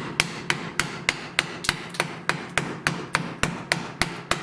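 Mallet striking a wood chisel in a steady rhythm, about three blows a second, chopping waste out of a curved cut in wood.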